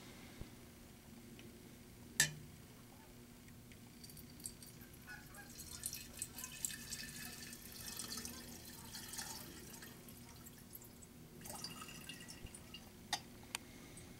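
Faint liquid sounds of gasoline and water being mixed in a glass flask: trickling and splashing for several seconds. A single sharp glass clink comes about two seconds in, and small clicks follow near the end.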